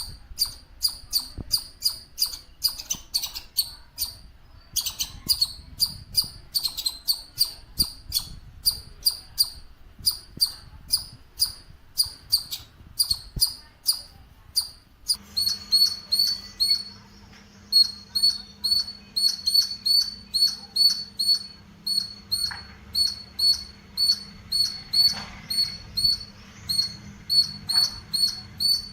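Squirrel chirping: a short, sharp, high-pitched call repeated about three times a second, with a brief break a few seconds in and another just past halfway. A faint steady hum sits underneath in the second half.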